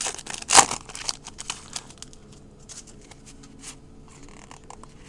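Baseball trading cards being handled and flipped through by hand: a sharp rustle and crinkle just after half a second in, then light scattered clicks and slides of card stock that thin out.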